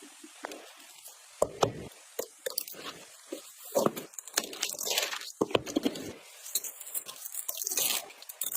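PC components being handled and fitted: a few sharp clicks about a second and a half in, then longer stretches of rustling, scraping and tapping.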